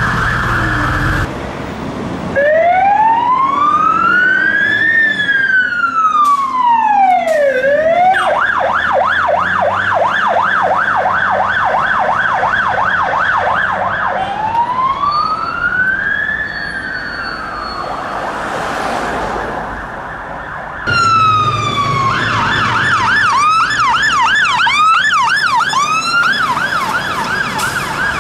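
UK fire engine sirens. A slow wail rises and falls, then switches to a fast yelp about eight seconds in. The wail comes back, and near the end two sirens yelp together.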